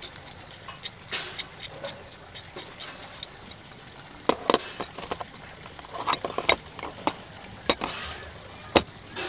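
Metal hand tools clinking and clicking against a moulded plastic tool case as an adjustable wrench and other tools are handled and set into their slots: scattered sharp clicks in small clusters, the loudest single click near the end.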